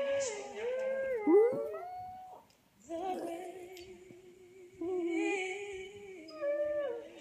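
A pet dog howling along with a singing dog playing from a YouTube video. Sliding howls for the first two seconds, a short break, then long, held, wavering notes.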